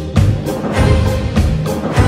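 Background music with a steady beat of about two pulses a second and strong bass notes on each beat.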